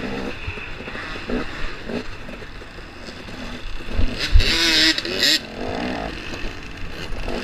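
KTM 250 XC-W two-stroke dirt bike engine running and revving on a rough woods trail, the pitch rising and falling with the throttle. About four seconds in there is a louder, higher-pitched blast of revving with a few low thumps from the bumps.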